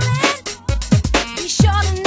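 Background music with a steady beat: deep kick drums that drop in pitch on each hit, a bass line, and a wavering melody over them.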